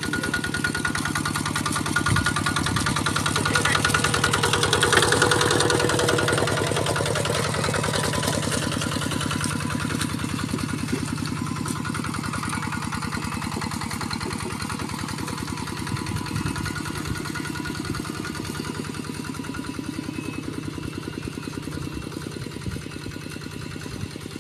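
Single-cylinder engine of a two-wheel walking tractor with cage wheels running steadily under load as it pulls through paddy mud, growing a little louder about five seconds in, then slowly fading as it moves away.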